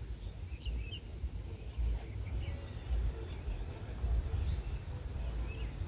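Outdoor rural ambience: a few faint, short bird chirps over a steady low rumble.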